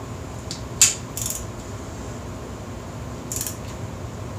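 Click-type torque wrench on a cylinder head bolt: one sharp click about a second in, the wrench signalling that the bolt has reached its set torque of 42 foot-pounds. Two short runs of rapid ratchet clicking follow as the wrench is swung back.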